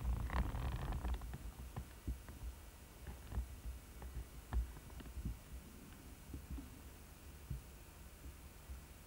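Handling noise on a handheld camcorder's built-in microphone: irregular low thumps and rumble with scattered faint clicks, and a brief rustle about half a second in.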